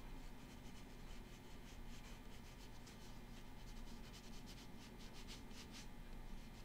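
Faint scratchy brushing of a watercolor brush stroking paint onto cold-press watercolor paper, in short irregular strokes over a steady low hum.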